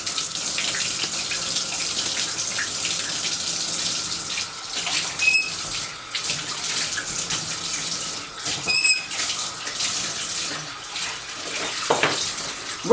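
Water running steadily from a bathtub tap, with two brief high squeaks about five and nine seconds in.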